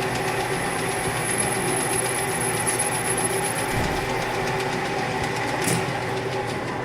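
Metal lathe running steadily while its cutting tool takes a light facing cut across the end of the workpiece, with a thin high whine that stops about halfway through.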